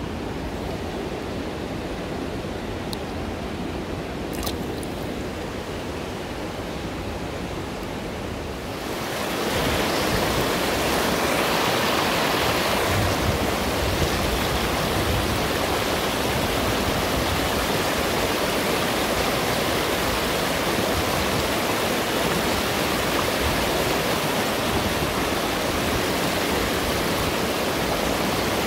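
Shallow mountain river running fast over a stony bed: a steady rush of flowing water that grows louder and brighter about nine seconds in.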